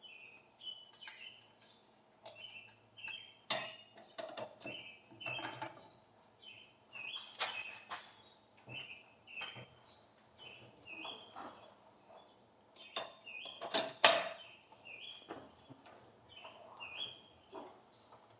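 A bird calling over and over in short chirps, about one a second, with scattered sharp metallic clinks from tool work on the car's wheel lug nuts.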